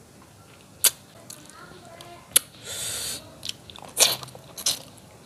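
Close-up mouth sounds of eating curried fish head by hand: a few sharp lip smacks and a short slurping suck as meat and sauce are sucked off the bones.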